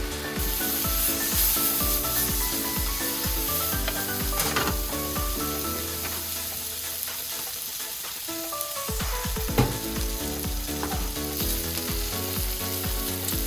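Pork belly and vegetables sizzling in a frying pan as they are stir-fried, with a spatula scraping and knocking against the pan, once sharply about ten seconds in. Light background music runs underneath.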